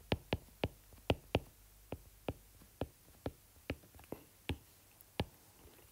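Stylus tip clicking on an iPad's glass screen while a word is handwritten: about a dozen short, sharp taps at an uneven pace, two or three a second.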